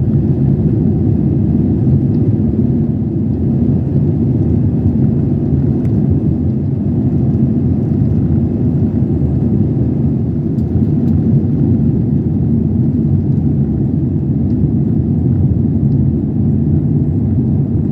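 Steady low rumble heard inside an airliner's cabin during the takeoff run and climb-out, the jet engines at takeoff power.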